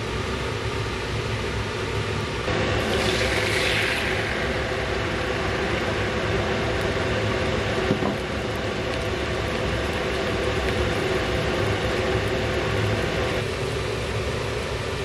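Beaten egg sizzling in a hot nonstick frying pan over a steady hum, with a louder hiss about three seconds in as the egg meets the pan.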